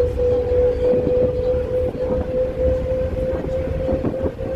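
Inside a bus moving at highway speed: a steady low rumble of engine and road with one constant high whine running over it.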